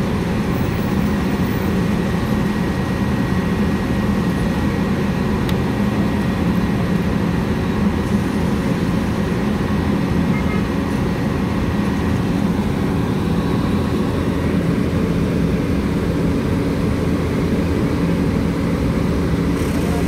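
Asphalt paver's diesel engine running steadily at an even, low speed.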